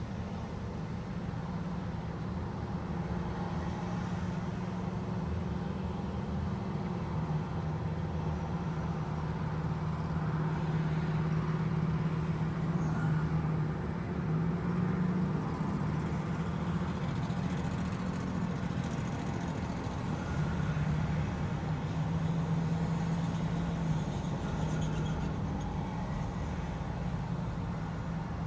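A steady low mechanical hum over a noisy rumble, swelling and easing slowly.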